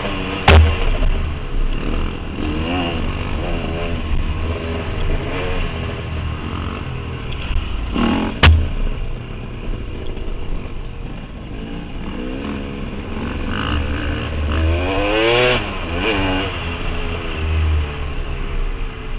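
KTM dirt bike engine revving up and down as it rides a rough dirt trail, its pitch rising and falling with the throttle. Two sharp knocks cut through, about half a second in and about eight seconds in.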